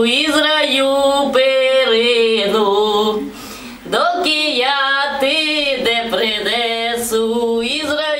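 A woman singing a Ukrainian Christmas carol unaccompanied, with a short break for breath about three seconds in.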